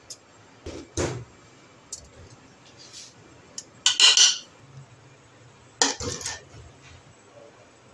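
A spoon clinking and tapping against an aluminium pressure cooker as spices are added, in a handful of separate short knocks. The loudest comes about four seconds in, and there is another cluster near six seconds as a china plate is tipped over the pot.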